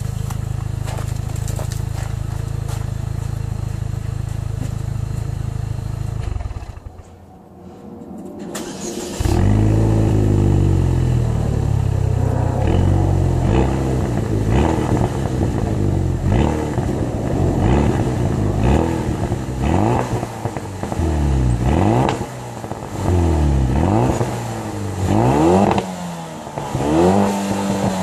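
Chevrolet Cobalt SS Turbo's turbocharged 2.0-litre four-cylinder, heard through a resonator-deleted exhaust with the stock muffler. It runs steadily at first, goes quiet for about two seconds a quarter of the way in, then starts up again. From there it is revved over and over, the pitch climbing and falling every second or two.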